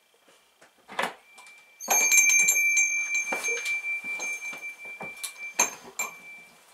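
A door being opened: a knock about a second in, then a noisy, clattery stretch under a steady high-pitched ringing tone that lasts several seconds and fades out near the end, with a few sharp knocks along the way.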